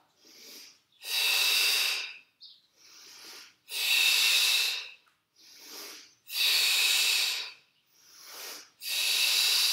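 A woman breathing heavily and in rhythm under exertion during a Pilates leg-lift set. There are four loud, forceful breaths about two and a half seconds apart, with a quieter breath between each.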